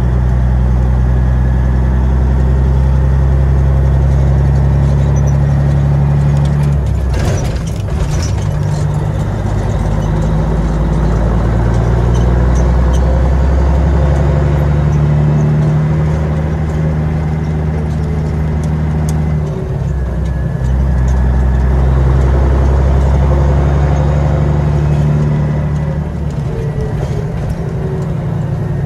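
Caterpillar 3406B straight-six diesel of a semi truck running under way, heard from inside the cab. The engine note breaks and changes pitch about seven seconds in and again around twenty seconds in.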